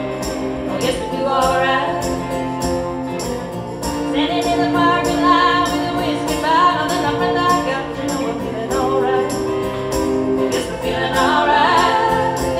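Live band music: women singing a song in harmony over strummed guitars with a steady beat.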